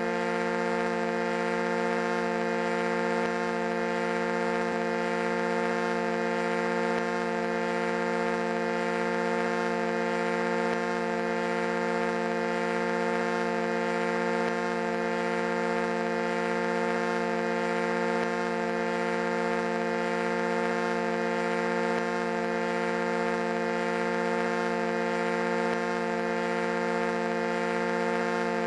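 Foghorn blowing one long, unbroken low blast that holds the same pitch and level without a break.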